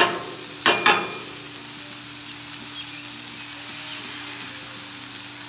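Smash burgers and hot dogs sizzling steadily on a hot Blackstone flat-top griddle, with a few sharp taps in the first second.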